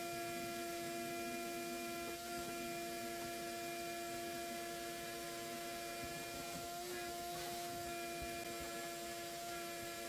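Shop vacuum running with a steady whine over a rushing hiss of air as its hose and wand suck dust along a window sill.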